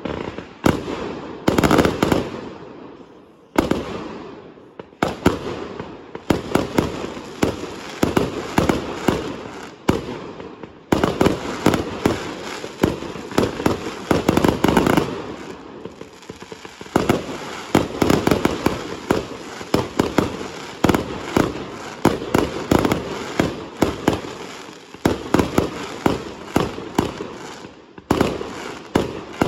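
Fireworks going off in rapid succession: a dense run of sharp bangs and crackling reports, thinning briefly every few seconds before picking up again.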